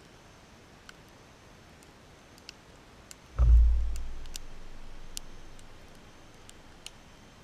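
A sudden heavy, very low thump about three and a half seconds in, dying away in a rumble over about two seconds, over faint, sparse high ticks.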